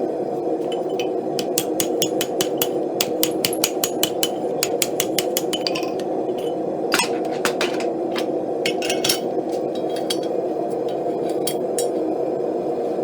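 Hammer making many light taps on steel while a scroll is rolled by hand. The taps come quickly in the first half and thin out later, with one harder blow about seven seconds in, over a steady low rushing noise.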